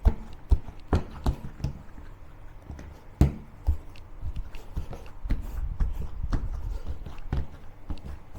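Bread dough being kneaded by hand: irregular soft thumps and slaps with sharper knocks, the loudest about three seconds in. The enriched dough is late in kneading, with its butter worked in, and is being made elastic.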